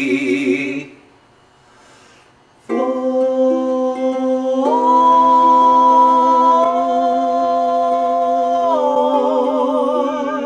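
Two voices singing a cappella in harmony: a wavering held note cuts off about a second in, then after a short pause a long sustained chord begins, shifting pitch twice and swelling into vibrato near the end.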